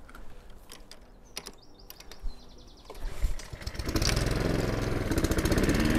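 A few clicks, then about three seconds in a Hayter rotary lawn mower's petrol engine starts and runs steadily, ready for scalping the lawn.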